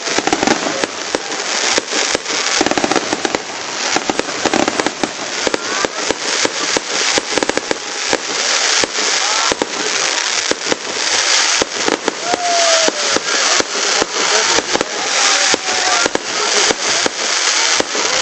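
Fireworks display going off without pause: a dense, unbroken run of bangs and crackling, many reports a second.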